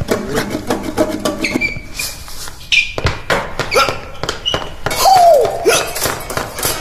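Foley sound design laid in place of music under a man dancing on a wooden stage: quick taps, scuffs and thuds of shoes on the boards, brief high squeaks about one and a half to three seconds in, and a louder gliding sound about five seconds in.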